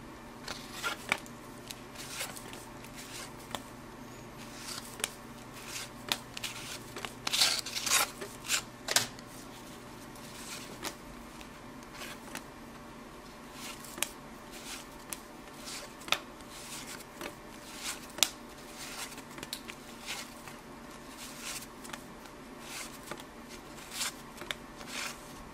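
1983 Topps baseball cards being flipped through by hand, one card at a time, each card flicking and sliding off the stack. This gives irregular light clicks, with a busier, louder run about seven to nine seconds in.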